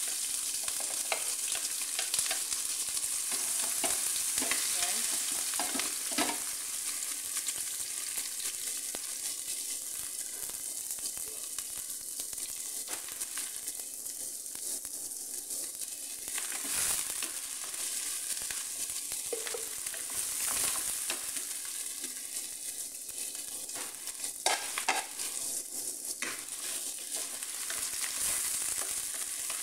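Chopped onions sizzling in hot oil in a nonstick frying pan, with a steady frying hiss, stirred now and then with a wooden spatula that gives a few short scrapes and taps against the pan.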